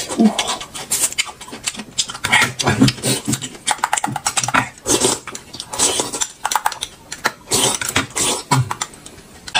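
Close-up eating sounds: a rapid, irregular run of wet chewing and lip-smacking clicks.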